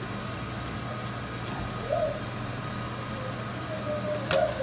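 Steady kitchen hum while roasted chiles and onion are lifted by hand off a griddle pan into a plastic blender jar; a faint short tone about two seconds in and again near the end, with a light knock as the pan is shifted on the glass cooktop.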